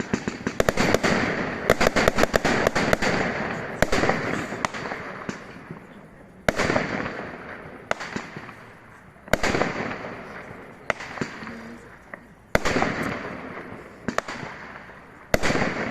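Fireworks display: a dense run of sharp crackling reports in the first three seconds, then single loud bursts about every three seconds, each fading out in a trailing crackle and rumble.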